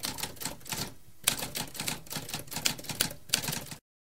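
Typewriter keys being struck in a rapid, irregular run of sharp clacks, with a short pause about a second in, stopping abruptly a little before the end.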